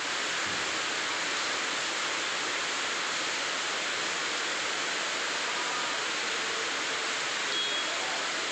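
Steady rain falling hard, an even hiss that holds at one level throughout.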